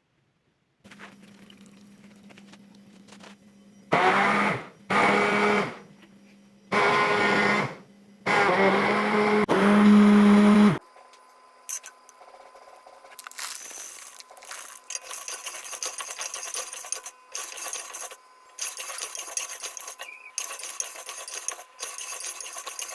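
Electric blender run in four short pulses, its motor humming loudly in each. It is followed by a quieter, steady high hiss that stops and starts a few times.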